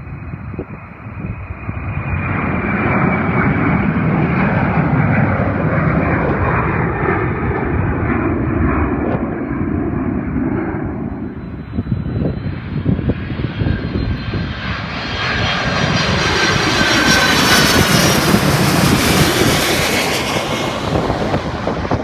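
Boeing 767-300 freighter's jet engines at takeoff power, a broad rumble joined about halfway through by a rising high whine with several whistling tones, loudest in the last third, then easing off. Gusty wind buffets the microphone underneath.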